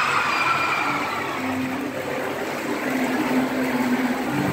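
Steady, indistinct hubbub of an audience in a hall, with no clear words.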